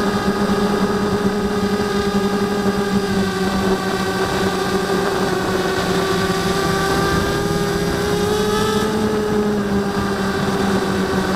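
Blade 200 QX quadcopter's motors and propellers running in flight, heard from the camera mounted on the craft: a steady hum of several tones whose pitches drift slightly up and down as the throttle changes.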